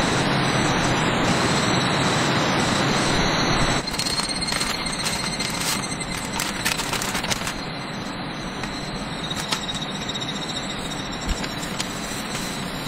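Steady rain noise, loud for the first few seconds, then suddenly quieter and duller, as heard from inside a small camper. Over it come soft crinkles and clicks of a tissue packet being handled and a tissue wiped across a wooden tabletop.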